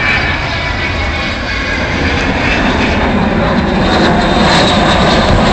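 Avro Vulcan bomber's four Rolls-Royce Olympus turbojets running in a display fly-by, growing steadily louder as the aircraft closes in.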